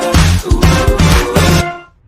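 Background pop music with a strong bass beat, cutting off abruptly near the end.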